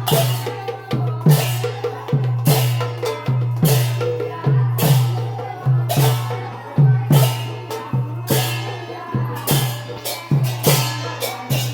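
Sylheti dhamail folk music led by percussion: a deep drum beaten in a steady rhythm, with a bright clash about once a second.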